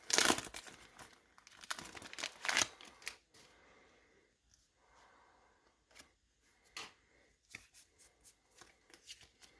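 A foil Pokémon booster pack wrapper being opened, with a dense crinkling and tearing rustle over the first three seconds, followed by scattered light ticks and short scrapes as the cards are handled.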